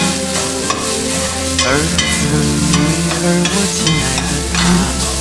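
A metal spatula scraping and stirring fried rice with shredded carrots around a stainless steel frying pan, with a frying sizzle. Background music with held notes plays throughout.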